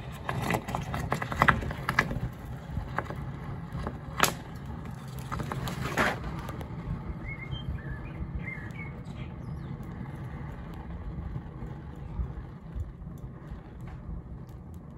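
Molten aluminium gargling and spitting in a still-damp plaster investment mould, with sharp pops and crackles over the first six seconds, loudest about a second and a half in and about four seconds in: trapped moisture turning to steam and gas escaping through the metal. A steady low rumble runs underneath, with a few faint bird chirps.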